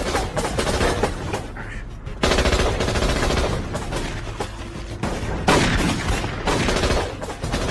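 Film shootout sound effects: rapid automatic-weapon and pistol gunfire, with loud fresh bursts about two seconds in and again past the middle, over a musical score.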